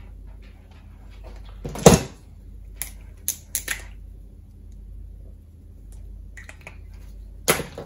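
Handling noise at a wooden worktop as wire is worked by hand: a sharp knock about two seconds in, a few light clicks just after, and another knock near the end, over a faint low hum.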